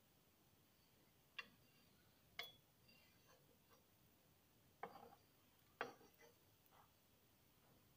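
Spatula clicking against a non-stick frying pan while handling a pancake: two light clicks a second apart, then after a pause two more, each followed by a few fainter ticks.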